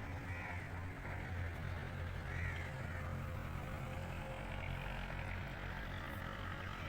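A crow cawing twice, about two seconds apart, over a steady low rumble.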